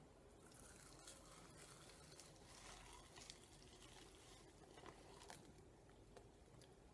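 Faint, scattered crinkles and rustles of dry, crispy loose-leaf chewing tobacco and its plastic bag as a cheekful of leaves is pushed into the mouth.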